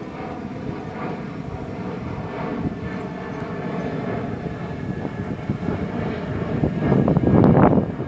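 Twin-engine jet airliner passing overhead: a steady engine rumble with a faint whine, swelling louder near the end.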